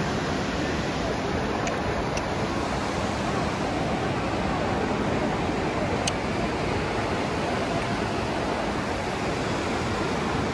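Steady rushing background noise of a large indoor shopping-mall atrium, with a few faint clicks.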